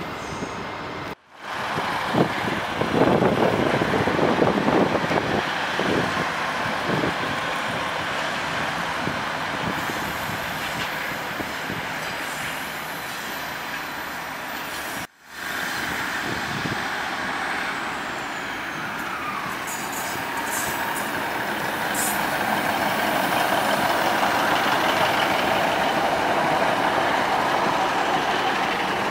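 Diesel multiple unit train running through the station, its engine and wheel noise building up in the second half as it draws alongside. The sound cuts off abruptly twice, about a second in and about halfway through.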